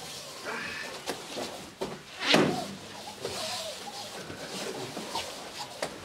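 Aikido practice on foam mats: several short, sharp thumps and slaps from bodies and feet landing on the mats, the loudest a little over two seconds in, with indistinct voices low in the background.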